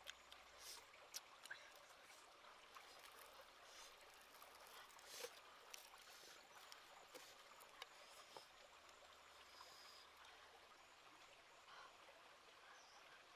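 Faint, steady trickle of a stream, with scattered small clicks from fingers pulling apart grilled fish and from eating, most of them in the first half.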